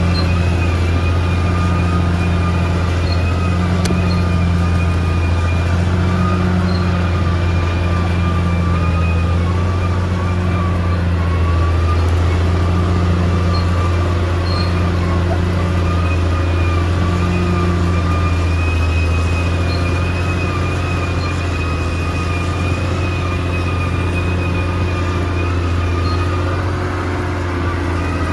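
Bulldozer's diesel engine running steadily, with a wavering high whine over the low engine note.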